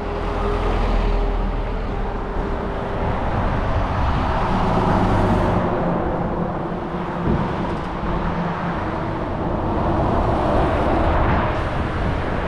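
Road noise while cycling: a steady rush of wind on the action camera's microphone, under the hum of a motor vehicle's engine.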